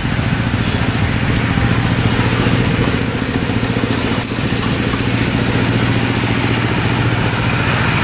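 Small diesel engine running steadily at a constant speed, driving a water pump.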